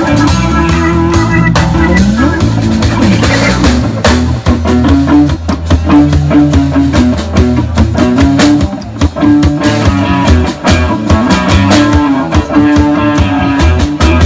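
Rock band playing: electric guitar over bass and drum kit, with a steady driving beat.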